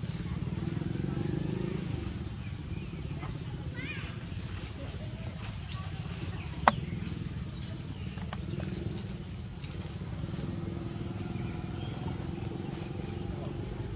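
A steady, high-pitched insect chorus with an even pulse, over a low rumble. About two thirds of the way through, a single sharp click stands out as the loudest sound.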